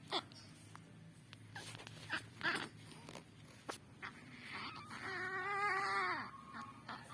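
A young child sick with a cough and cold crying weakly in a thin, small voice: a few short whimpering sobs, then about five seconds in a longer wavering wail that drops away at its end.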